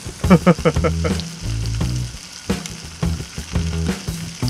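Beef steaks sizzling as they grill on a flat griddle pan.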